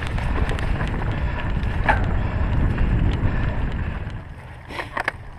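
Wind buffeting the camera's microphone as a steady low rumble, with scattered small clicks and rattles; the rumble eases about four seconds in and a few sharper clicks follow.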